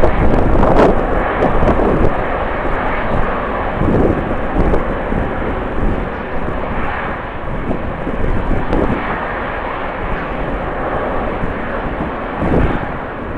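Jet airliner engines roaring, loudest at the start and slowly fading over the seconds, with strong wind buffeting the microphone.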